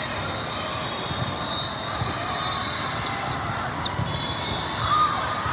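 Din of a busy indoor volleyball hall: balls being hit and bouncing on many courts, with sneaker squeaks on the sport court and a background murmur of voices, all echoing in the large hall. A cluster of squeaks and a louder hit come about five seconds in.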